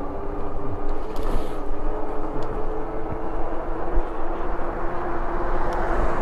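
Wind rushing over the microphone of a moving e-bike, with the steady whine of the bike's electric hub motor running under it.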